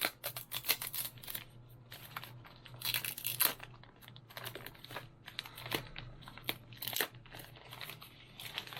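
Packaging being handled and opened: crinkling and tearing with scattered clicks and taps, and a longer rustle about three seconds in.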